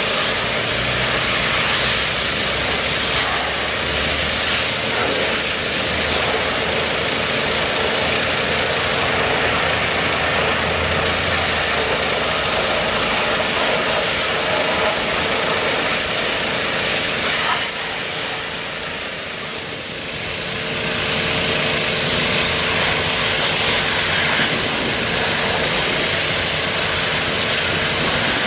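High-pressure water hoses spraying hard against mud-caked trucks and tires, a dense steady hiss and splatter, with an engine running steadily underneath. The spray eases for a few seconds past the middle, then comes back.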